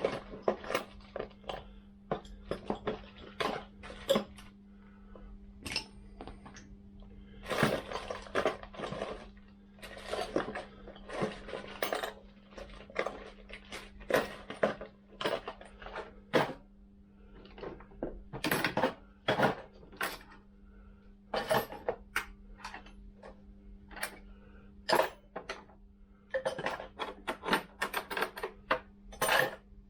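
Metal hand tools clinking and clattering irregularly as a toolbox is rummaged through for a 13mm socket and ratchet, over a steady low hum.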